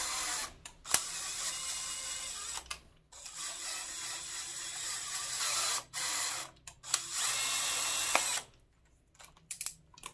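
Cordless drill driving an oiled M8×1.25 tap into a freshly drilled hole in a cast-iron LS engine block, running in several short spurts with brief stops. The drill stops about eight seconds in, followed by a few light clicks.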